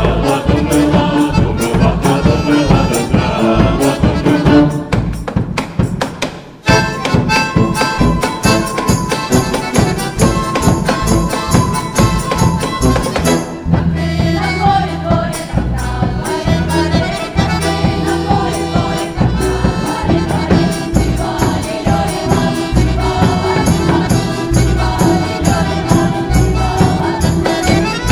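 Folk ensemble's stage music with a steady beat, breaking off for a moment about six and a half seconds in and starting up again.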